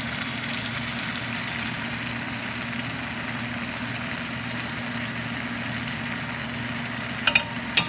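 Steady hum and hiss of a running kitchen appliance, like a fan motor, with a few sharp metallic clicks near the end as metal tongs knock against the cooking pot.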